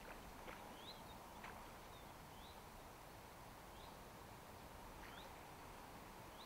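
Near-quiet outdoor ambience with a small bird giving short, rising chirps, repeated every second or so, and a few faint ticks in the first second and a half.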